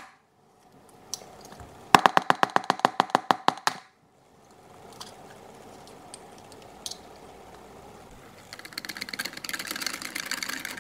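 Metal wire whisk beating pancake batter in a plastic measuring jug: the tines tap the jug's sides in a quick, even run of clicks, about eight a second, then stir more softly. Near the end the whisking turns faster into a dense rattle.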